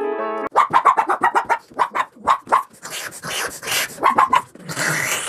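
Guitar-led music cuts off about half a second in. Then a woman makes dog noises: a quick run of short, sharp yaps, then breathy huffing and a few more yaps near the end.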